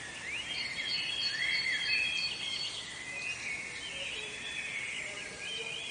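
Several songbirds singing and chirping at once in woodland: many overlapping high whistled notes and quick sliding chirps, with no break.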